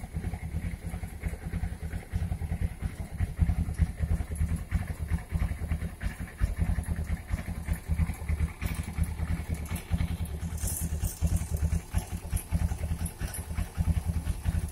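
Motorcycle engine idling with a fast, rattling tick over its steady hum: the sign of a slack cam chain, its tensioner loose.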